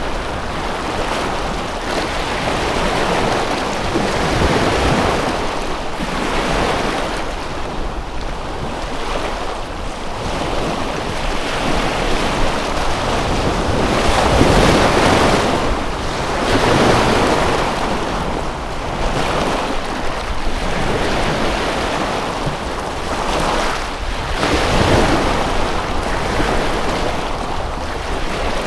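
Waves washing in on a shore, the noise swelling and ebbing every few seconds, with wind buffeting the microphone.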